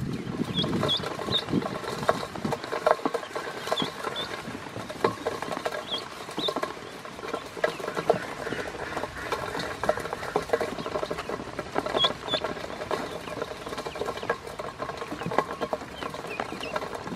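Ducklings pecking feed from a stainless steel bowl: a busy, continuous patter of bills clicking and scraping on the metal. Short high peeps come now and then, often in quick pairs.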